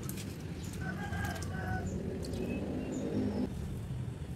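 Birds calling: a few short, high chirps and brief held notes over a low, steady drone.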